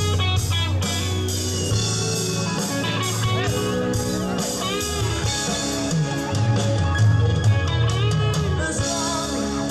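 Live rock band playing: electric guitars over a steady bass line and a drum kit.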